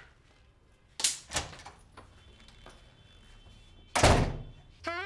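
A wooden door being handled and shut: a sharp click and knock about a second in, then a louder door slam about four seconds in.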